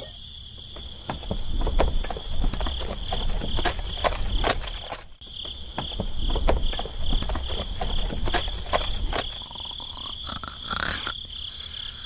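Crickets chirping steadily. From about a second in until near the end, a string of irregular light knocks over a low rumble runs underneath.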